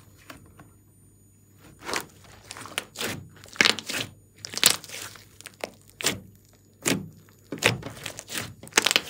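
Hands squeezing and pressing a large lump of slime mixed with foam beads, giving sticky squelches and crackling pops about twice a second from about two seconds in, as trapped air bursts out of the slime.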